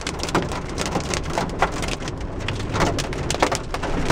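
Heavy rain pelting a car's windshield and roof, heard from inside the cabin: many sharp, irregular drop impacts over the steady low rumble of the car driving on a wet road.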